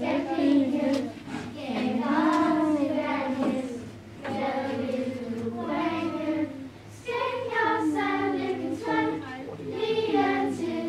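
A girls' Lucia choir singing a Christmas song without accompaniment, in phrases broken by short breaths.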